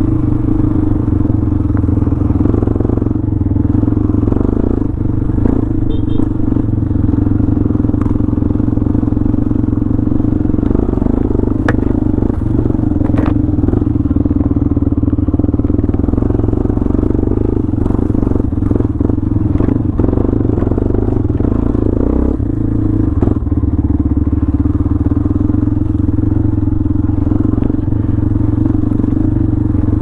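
Honda CB500X's parallel-twin engine running steadily at an even pace on a rough dirt track, with scattered short knocks and clatter as the bike rides over the ruts.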